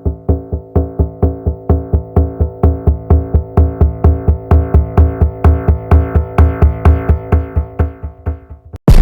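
Short electronic music loop: a sustained synth chord pulsing with a drum-machine beat, about four beats a second. It stops abruptly, and a sudden loud blast begins right at the end.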